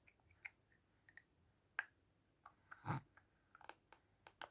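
Teeth grinding: faint, scattered short clicks and squeaks of tooth on tooth, with a louder grating scrape about three seconds in.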